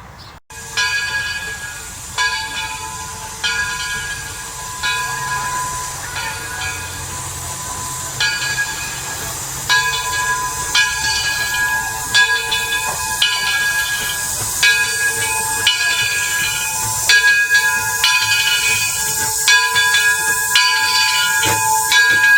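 Steam locomotive bell ringing over and over, a clang about every second and a quarter, over a steady hiss of escaping steam from the Edison 4-4-0 standing at the station.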